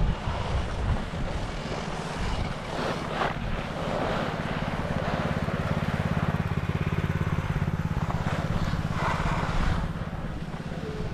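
A vehicle engine running with a steady low hum. It grows louder from about four seconds in and eases off near the end.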